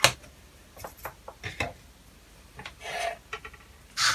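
Small items being handled on a workbench: a sharp knock at the start, then scattered clicks and scraping as a small plastic spool and a reel of solder are picked up and moved across the bench surface, with another rasping scrape about three seconds in.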